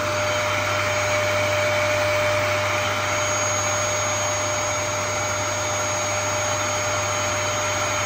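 Dyson canister vacuum cleaner running steadily: an even motor hum with a constant high whine over it.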